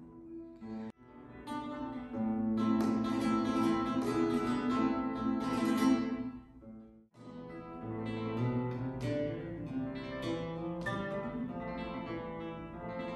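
Flamenco guitar played solo, with strummed chords and plucked runs. The playing breaks off about seven seconds in and starts again at once.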